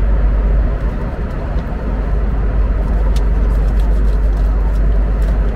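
Airliner cabin noise: a steady, loud low rumble of jet engines and airflow, with a few faint small ticks on top.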